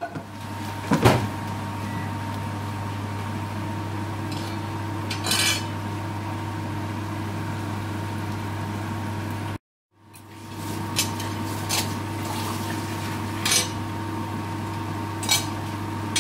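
Metal spoon knocking and scraping against a steel wok as sliced onions frying in oil are stirred, a few separate strikes over a steady low hum.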